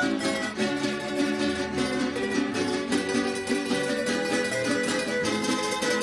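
Plucked-string estudiantina ensemble of bandolas, mandolins and guitars playing a tune together: quick picked melody notes over chords and a bass line.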